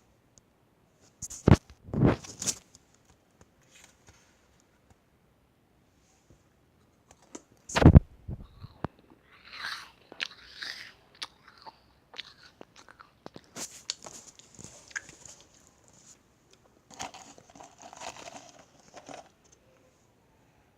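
Crisp meringue cookies being bitten and chewed, crunching. There are loud bites about two seconds in and again about eight seconds in, followed by softer, scattered crunching.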